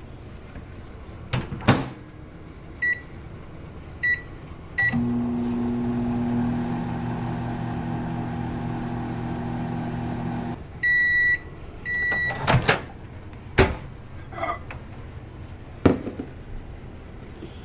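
Microwave oven in use: three short keypad beeps, then the oven running with a steady hum for about six seconds before it stops and gives a long beep and a short one. Sharp clicks and knocks come before the keypad beeps and after the final beeps.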